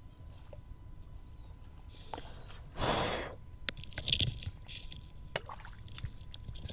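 A single short breathy exhale close to the microphone about three seconds in, with faint clicks and rustles around it.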